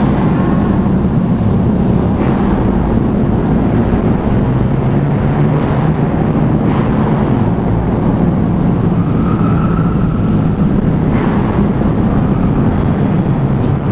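Motorcycle engine running steadily at cruising speed, with wind and road noise.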